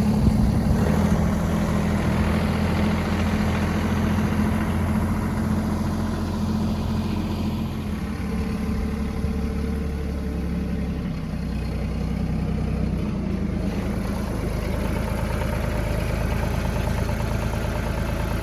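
An engine running steadily at idle, a continuous low hum.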